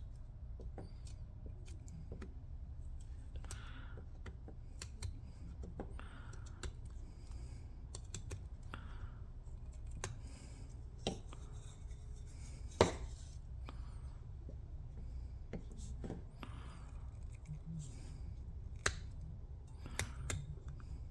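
Small knife blade of a pocket multi-tool carving a notch into a hardwood stick: short scraping cuts and little clicks at irregular intervals, with one sharper snap about thirteen seconds in.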